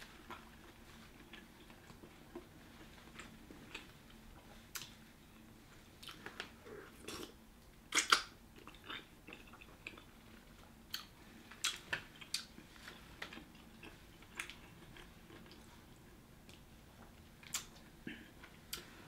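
A person eating seafood-boil shrimp close to the microphone: soft chewing, with scattered short clicks and smacks as food is picked from a bowl of sauce. The loudest smack comes about eight seconds in.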